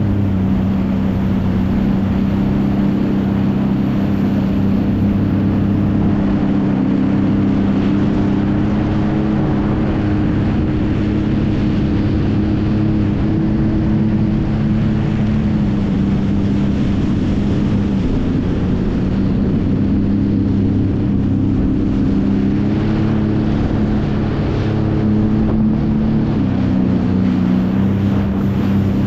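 Jet ski engine running steadily under way, heard from on board over the rush of water and wind. Its note drops briefly a little past halfway and again near the end.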